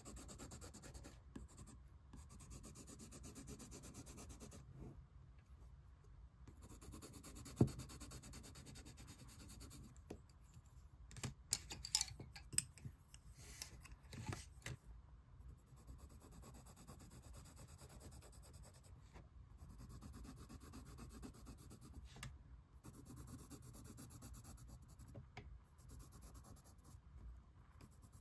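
Colored pencil scratching across sketchbook paper in steady stretches of shading strokes, broken by short pauses. Midway there are a few sharp clicks and taps.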